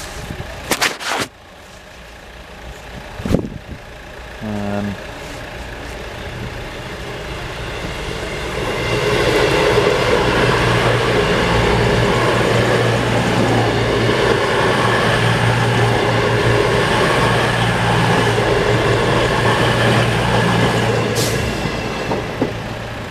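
CrossCountry Voyager diesel multiple unit running past on the line, its engine note and wheel noise building over a few seconds, staying loud for about twelve seconds, then easing off near the end. A few sharp knocks come in the first few seconds.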